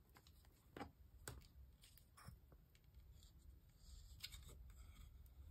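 Near silence with a few faint, scattered clicks and taps from handling a plastic glue bottle and its cap.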